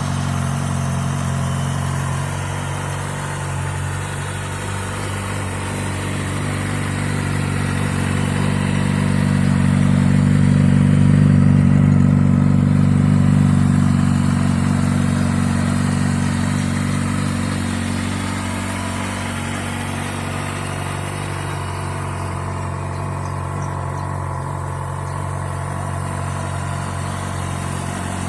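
Kawasaki Ninja ZX-6R's inline four-cylinder engine running steadily, near idle. It grows louder toward the middle and then eases back.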